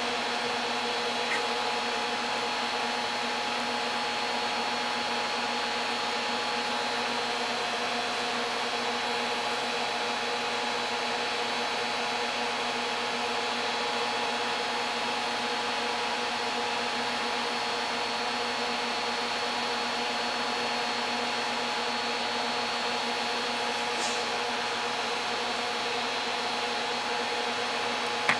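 A 10 kW resonant-lock induction heater running steadily as it heats an iron billet: an even whirring hum with several steady tones that stays unchanged throughout. A short click sounds near the end.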